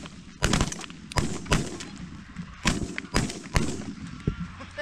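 Shotgun shots fired at passing geese: about six sharp reports spread over roughly three seconds, each followed by a short echo.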